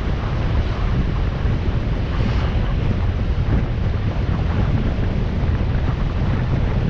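Wind rushing over the microphone of a motorcycle riding along a road, a steady, loud, low rumbling rush.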